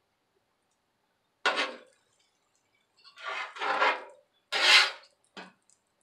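Metal spatula scraping across the steel surface of a flat-top griddle in four short strokes, the loudest about three-quarters of the way through.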